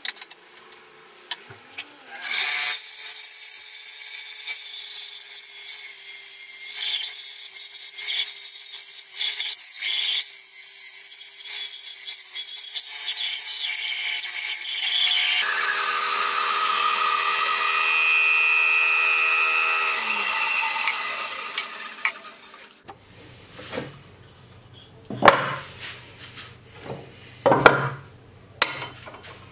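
Einhell benchtop bandsaw cutting a wooden axe-handle blank: a steady machine tone under the noise of the blade sawing through the wood, starting about two seconds in. Around fifteen seconds the sound changes to a more ringing whine, which fades away by about twenty-two seconds. A few sharp knocks follow.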